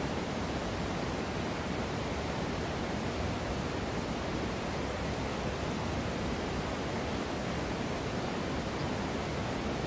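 Steady rushing of creek water, an even hiss with no breaks.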